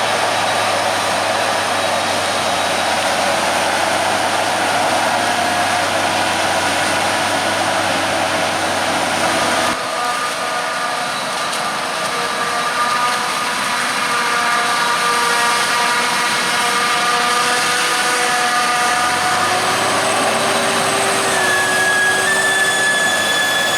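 Heavy diesel farm machinery running steadily, with several high whining tones over the engine noise; the sound changes abruptly about ten seconds in.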